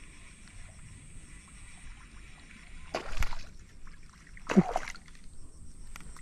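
Two sudden splashes on the water surface, about three seconds and four and a half seconds in, the second with a short falling gulp: a snakehead (haruan) striking at the lure. Insects keep up a faint high steady buzz underneath.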